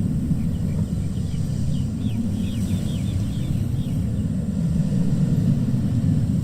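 Sea waves washing onto a beach, heard as a steady low rumble. A few faint, short high chirps come through in the middle.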